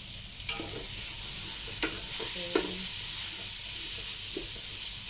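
Julienned ginger frying in hot oil in a metal pot, a steady sizzle, while a wooden spatula stirs it and knocks sharply against the pot several times.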